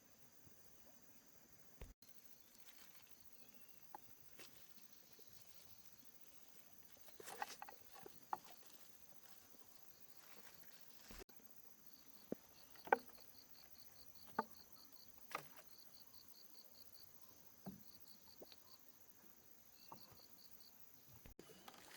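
Near silence with faint insect chirping in short trills of quick even pulses, and scattered small knocks and taps.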